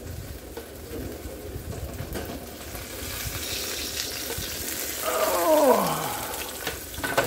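Chicken wings sizzling on a metal air-fryer tray as it is taken out of the oven. About five seconds in, a short squeal falls steeply in pitch.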